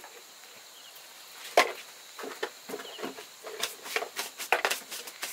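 Irregular sharp knocks and snaps: one loud crack about a second and a half in, then a quick uneven run of smaller ones.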